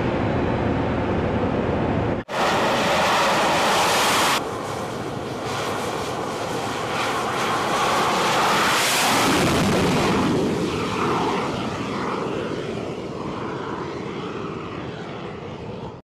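Jet aircraft engine noise in several clips spliced together, with abrupt cuts about two and four seconds in. It swells near the middle and then slowly fades.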